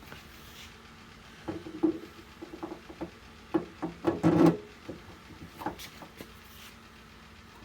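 A cluster of knocks, clicks and rattles as door-latch and handle hardware is handled and fitted against the door. The taps start about a second and a half in, are loudest around four seconds in, and stop just before six seconds.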